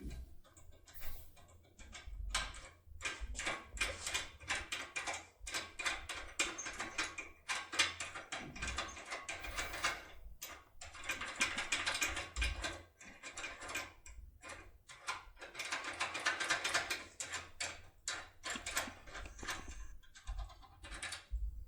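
Foil impression pick being rocked up and down inside a TESA TX80 cylinder lock under tension, with the tool and the pins clicking and rattling in quick, irregular runs of many small clicks a second. The clicks thin out shortly before the end.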